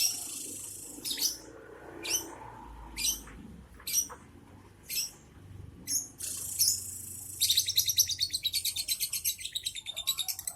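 Young lovebird calling: sharp high chirps about once a second, then from about seven seconds in a fast, unbroken rattling chatter, the lovebird's 'ngekek' song.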